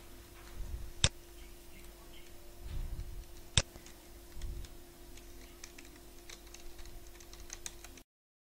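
Two sharp computer mouse clicks about two and a half seconds apart, then a run of quick keyboard typing. The sound cuts out suddenly near the end.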